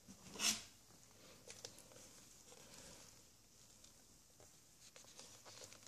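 Clear plastic deli cups being handled and one picked up: a short scrape about half a second in, then faint rubbing and light clicks of the plastic.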